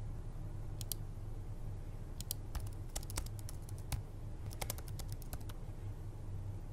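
Typing on a computer keyboard: a few short bursts of key clicks, over a low steady hum.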